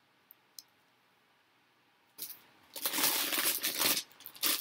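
Clear plastic bags of toy building bricks being picked up and handled: the bags crinkle and the small plastic bricks inside clatter and clink against each other, starting about two seconds in after a quiet start.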